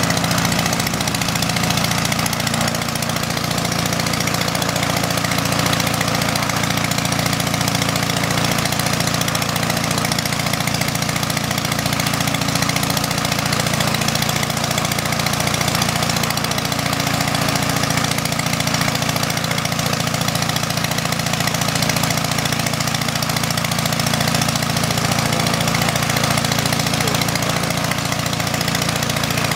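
The engines of a replica Port Victoria PV8 Eastchurch Kitten and an SE5a, two First World War biplanes, running together at a steady, even speed.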